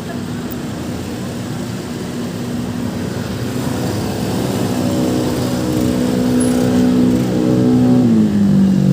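A road vehicle's engine approaching and growing steadily louder, then dropping in pitch as it passes near the end.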